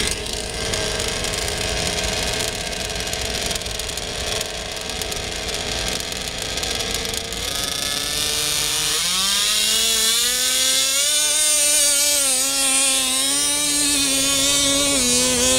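An RC mini pulling tractor's small model engines run steadily at first. About nine seconds in they rev up to a high-pitched full-throttle run, the pitch wavering slightly as the tractor pulls the weighted sled down the track.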